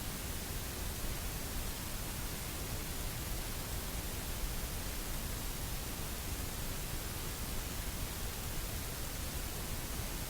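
Steady, even hiss like static, with no other sound in it.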